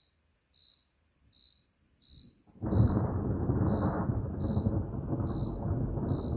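A cricket chirps steadily, a little more than once a second. About two and a half seconds in, thunder breaks in suddenly and rolls on loudly as a deep, continuous rumble.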